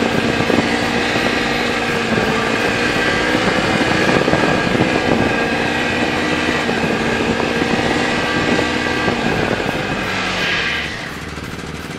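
Snowmobile engine running steadily under way, heard from the rider's seat, with a broad rushing noise under the engine tone. About eleven seconds in it drops noticeably quieter.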